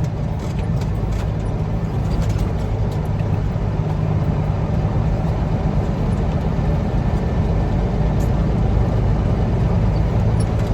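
Diesel truck engine running steadily under road noise while driving, heard from inside the cab, with a loaded dirt trailer behind.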